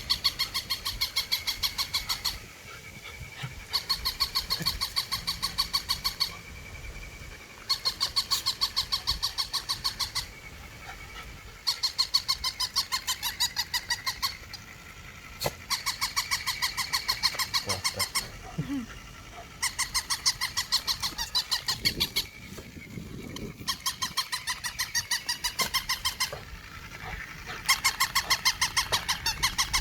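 Battery-powered toy Shiba Inu dog barking in runs of rapid yaps. Each run lasts about two and a half seconds and a new one starts every four seconds, over a steady high whine.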